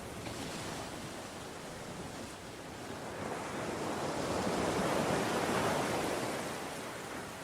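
Ocean surf washing, with one wave swelling to a peak about two thirds of the way through and then easing off.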